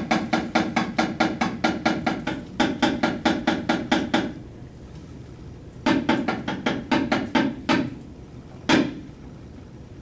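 A Balinese shadow puppeteer's wooden knocker (cepala) striking the puppet chest: rapid, even knocking, about five strikes a second, in a run lasting about four seconds and a shorter run about six seconds in, then one single knock near the end.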